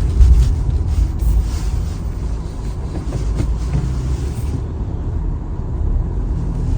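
Car driving along a street, heard from inside the cabin: a steady low rumble of engine and road noise. The higher hiss on top fades out about two-thirds of the way through.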